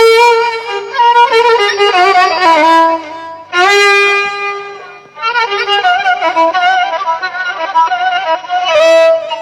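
Violin playing a slow, ornamented melody with wide vibrato and sliding notes, in phrases with short breaks about three and five seconds in.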